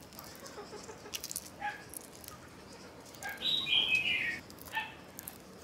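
Boiled quail eggshells crackling and clicking as fingers peel them. Several short, high-pitched animal whimpers come through at the same time, the loudest and longest about three and a half seconds in.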